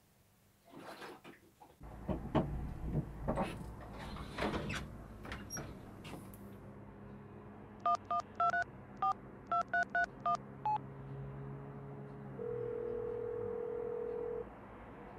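A run of knocks and clatter, then a mobile phone's keypad giving about ten quick two-tone beeps as a number is dialled. After that comes one long steady tone as the call rings.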